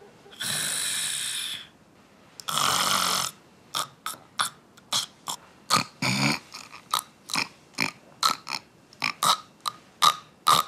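A woman snoring: two long snores, then a quick run of short snorting snores, about two or three a second.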